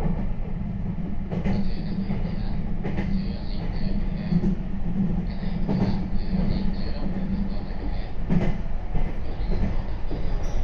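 Meitetsu 3500 series electric train running, heard from inside the front car: a steady rumble from the wheels and running gear, with four sharp, irregularly spaced clacks from the wheels over the track.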